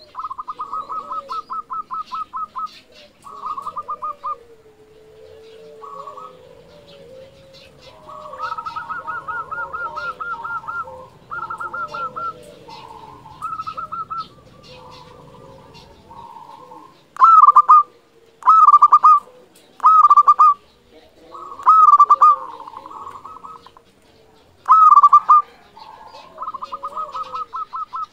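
Zebra dove (perkutut) cooing: short phrases of fast, rattling trilled coos, then in the second half louder separate coo phrases a second or two apart.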